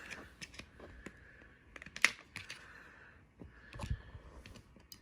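Light plastic clicks and taps from a TV remote control as its battery cover is opened and the batteries are taken out. There is one sharp click about two seconds in and a duller knock near four seconds.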